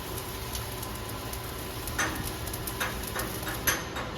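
Stick (SMAW) welding arc crackling and sizzling steadily while running an overhead fillet weld, with a few sharper pops in the second half.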